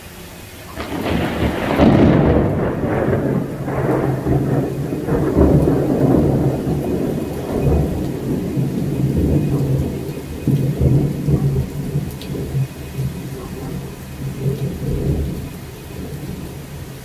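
Thunder: a loud crack about a second in breaks into a long, low rolling rumble that swells several times and eases off near the end. Steady heavy rain falls beneath it.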